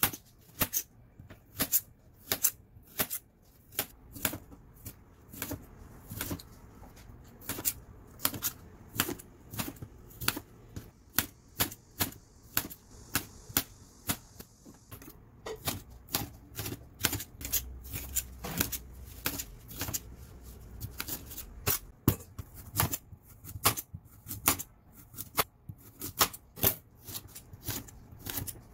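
Chef's knife slicing cucumber and carrot on a stainless steel cutting board: a steady run of sharp clicks as the blade strikes the metal board, about two to three a second.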